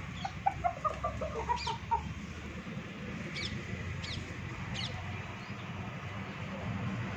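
Rooster clucking: a quick run of about a dozen clucks over the first two seconds, stepping slightly down in pitch. A few thin, high chirps follow, over a steady low background rumble.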